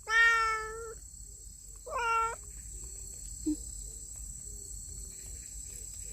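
Stray cat meowing twice: one long meow at the start, then a shorter meow about two seconds in.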